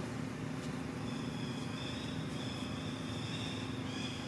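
Outdoor background sound: a steady low rumble with a constant hum, joined about a second in by several thin, high, sustained tones.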